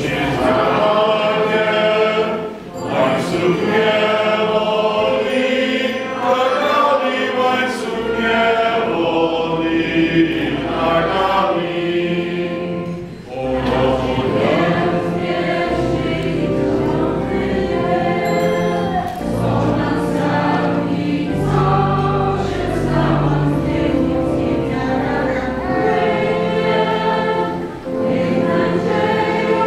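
A choir singing a church hymn in phrases, with short breaks between phrases.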